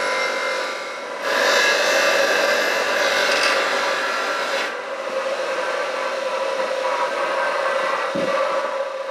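Bench grinder running with a steady hum while a steel steering stem and a bolt are held against its spinning wire wheel to clean them. A louder scraping from about one second in to nearly five seconds.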